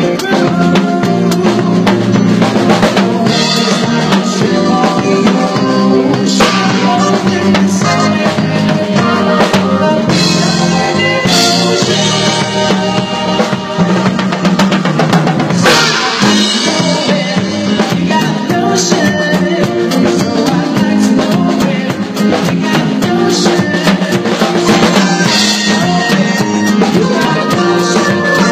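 Live band music with a drum kit played close by: a steady beat of drum strokes and cymbals over sustained pitched instruments.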